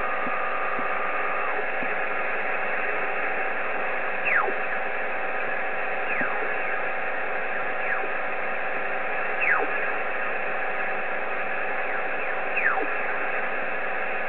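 Icom IC-7300 shortwave transceiver in upper sideband hissing with 10-meter band noise while it is tuned up the band. About five times a whistle sweeps quickly down in pitch as the dial passes a carrier, with a few faint steady tones underneath.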